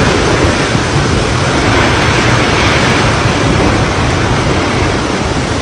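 Typhoon-force wind buffeting the microphone, a loud, steady rush with no let-up.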